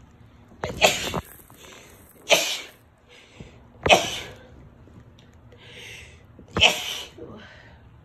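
A woman sneezing four times in quick succession, allergy sneezes. The first comes about a second in and the last near the end, with short breaths between them.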